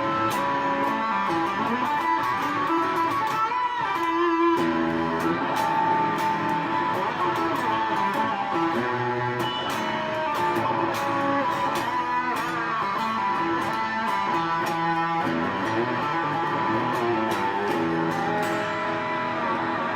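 Electric guitar played through a BOSS DS-2 Turbo Distortion pedal: distorted chords and notes played continuously, ringing into one another with no pauses.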